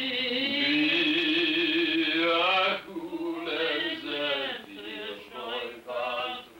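A single voice singing a slow Yiddish song: a long note held with vibrato for nearly three seconds, then a few shorter phrases with brief breaks between them.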